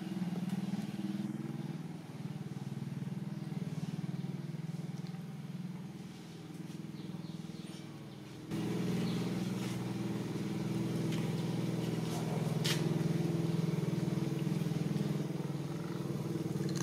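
A steady low motor drone, as of an engine running, that becomes louder about halfway through, with a few faint clicks.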